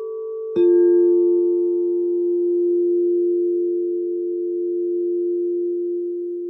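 Quartz crystal singing bowls ringing: one bowl is struck about half a second in and sings a long, steady low tone that slowly swells and fades, over the still-ringing tone of a bowl struck just before.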